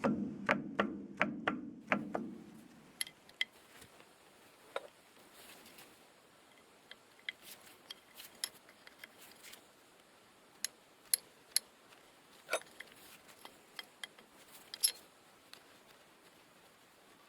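Metal parts and tools being handled during repair work: a brief low hum with about seven quick, evenly spaced ticks in the first two seconds, then scattered light clicks and knocks.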